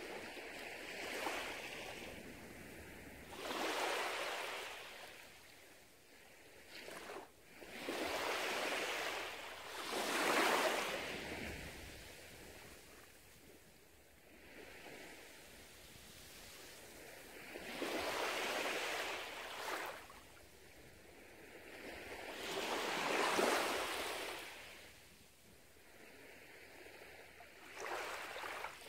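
Small sea waves washing up a sandy beach, a rushing hiss that swells and ebbs in surges every few seconds.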